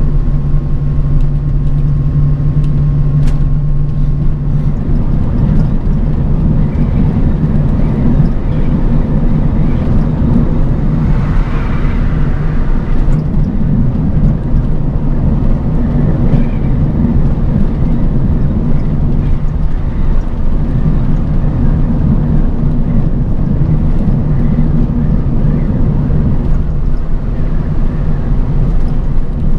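Bus travelling on the road, heard from inside: a steady low engine drone with road and tyre noise. A faint whine fades out within the first few seconds, and a brief swell of hiss comes about eleven seconds in.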